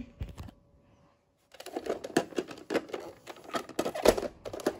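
Irregular clicking and rattling of plastic toy-blaster parts being handled. It starts about a second and a half in, after a short silence.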